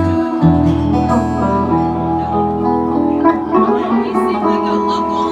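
Solo acoustic guitar being played: picked notes ring over a sustained low bass note.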